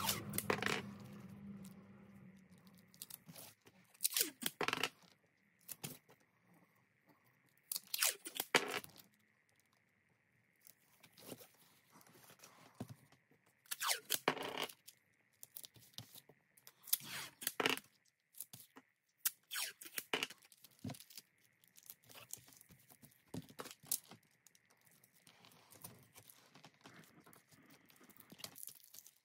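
Sheet material being cut by hand with a blade, in irregular strokes of varying length several seconds apart.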